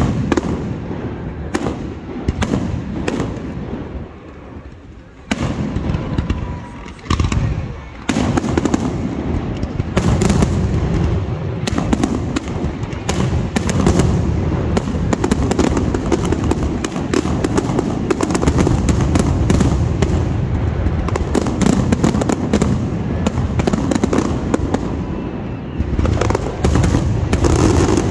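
Aerial firework shells launching and bursting: separate bangs for the first few seconds, then a dense, near-continuous barrage of overlapping bangs and crackles from about eight seconds in.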